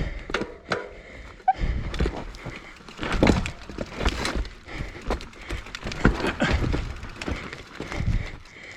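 Mountain bike on a dirt trail, with irregular knocks, thuds and rattles and a low rumble under them.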